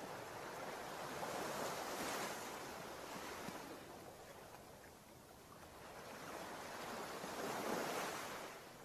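Ocean surf washing onto a sandy beach, swelling twice as waves break, the second swell near the end.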